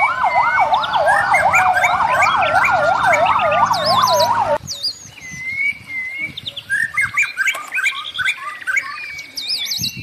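Fire engine siren in a fast yelp, with a slower wail sweeping up and down beneath it, cutting off abruptly about halfway through. Birds chirp throughout and carry on alone after the siren stops.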